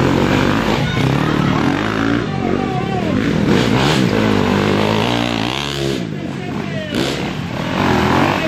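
Several dirt bikes with their engines revving up and down as the riders push through a shallow river crossing, with water splashing.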